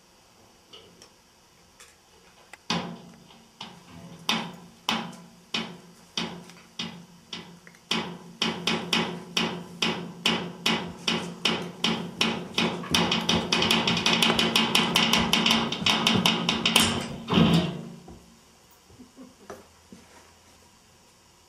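Sharp knocking that starts a few seconds in, spaced out at first, then speeds up into a fast hammering roll over a low sustained tone, and cuts off suddenly with a few seconds still to go.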